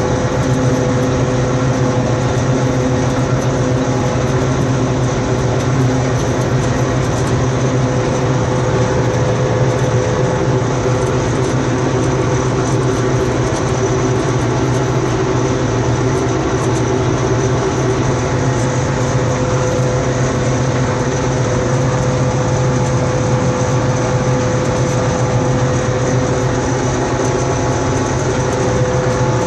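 Deutz-Fahr M35/70 combine harvester running steadily, its engine and threshing machinery giving a constant low drone with a steady mid-pitched whine over it.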